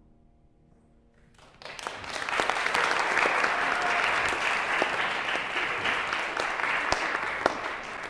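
The last piano chord fades away, then an audience breaks into applause about a second and a half in, a dense clapping that carries on to the end.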